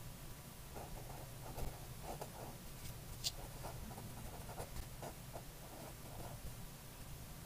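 Fine-tip felt pen writing on paper: a run of short, quick scratching strokes as cursive letters are formed, with one sharp tick about three seconds in.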